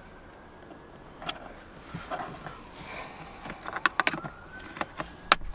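Hard plastic clicks, taps and rattles as a Skoda Octavia 3 glovebox door's opening limiter is worked onto its support. They start about a second in, grow busier, and end with a sharp click near the end.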